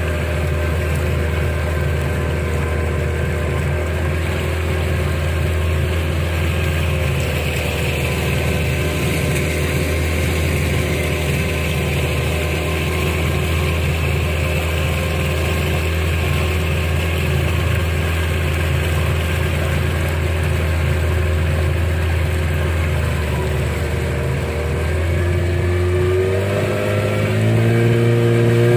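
A river longboat's motor running steadily under way; near the end its pitch climbs as the revs come up.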